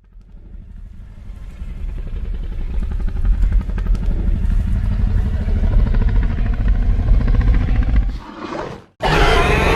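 Indominus rex creature sound effect: a low, rumbling growl with a rapid flutter that swells from quiet to loud over about eight seconds and breaks off, followed about nine seconds in by the start of a louder, brighter roar.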